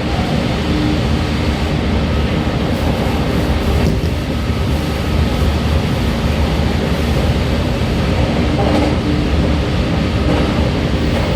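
JR Kyushu 813 series electric train running at a steady speed, heard from inside its motor car: a continuous rumble of wheels on rail with a faint steady whine over it.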